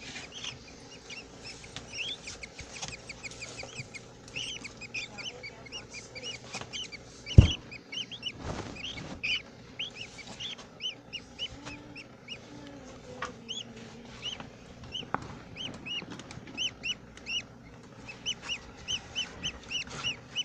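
Budgerigars chirping and chattering in rapid, repeated short chirps, with a single sharp knock about seven seconds in.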